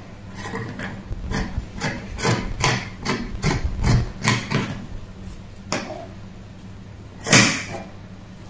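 Fabric scissors snipping through cloth on a wooden table: a run of quick, sharp cuts about three a second, then a pause and one louder snip or knock about seven seconds in.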